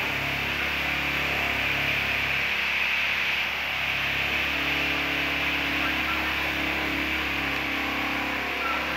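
Steady background noise with a low hum beneath it, unchanging throughout, with no distinct event.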